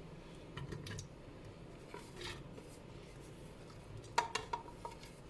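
A few light clinks of metal kitchenware against a pressure cooker as chopped vegetables are added. The sharpest come in a quick cluster about four seconds in, each with a short ring.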